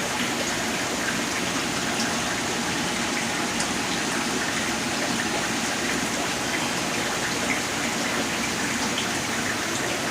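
Steady rushing, splashing water from aquarium tank filtration and water returns, an even hiss with a few faint ticks.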